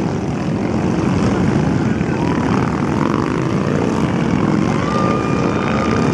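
A stream of motorcycles, mostly big cruisers and touring bikes, riding past one after another at low speed, their engines making a continuous low, dense drone. About five seconds in, a horn starts a long steady note.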